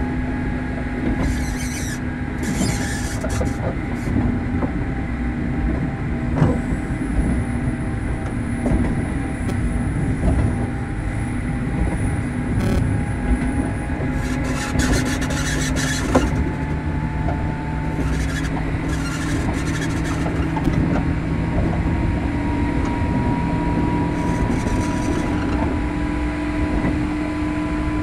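Running sound inside a JR Kyushu 103 series 1500 subseries electric motor car (MoHa 102-1510) under way: a steady rumble of wheels on rail with scattered clicks. Over it runs a humming whine from the drive gear that climbs slowly in pitch in the second half.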